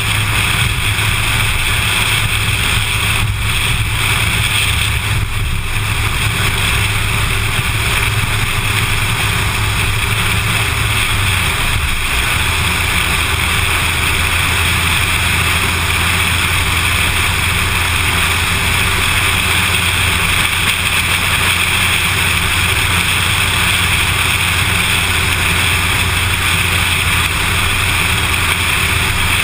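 Car driving at steady speed on an asphalt road: continuous engine and tyre rumble with wind noise over the car-mounted camera. The low engine hum drops slightly in pitch about twelve seconds in.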